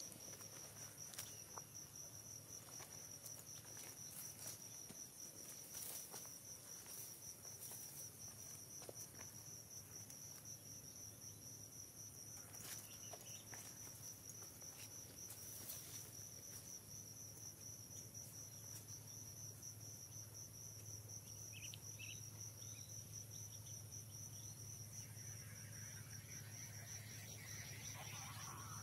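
Insects trilling in a steady, high, pulsing drone, faint, with a low hum underneath and a few light ticks.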